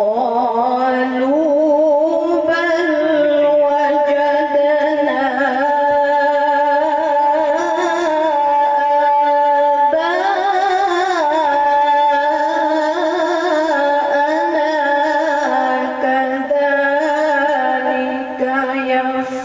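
A woman's melodic Qur'an recitation (tajwid chanting) into a microphone: long held, ornamented phrases with wavering pitch, starting suddenly and running almost without a break, with a brief pause near the end.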